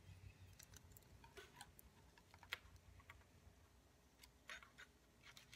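Faint, scattered small clicks and taps of fingers handling a toy drone's plastic motor housing and wires, with one sharper click about halfway through.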